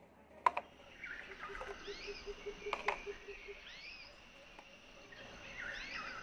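Birds chirping faintly in short, curving calls, with a sharp click about half a second in and another near the three-second mark.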